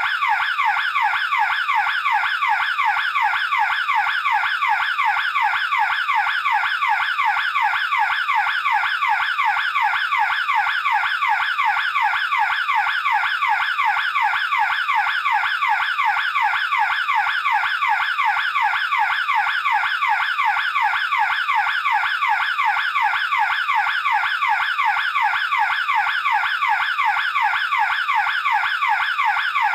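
Burglar alarm siren sounding continuously: a loud, fast-repeating warble of rapid pitch sweeps, several a second, steady and unchanging.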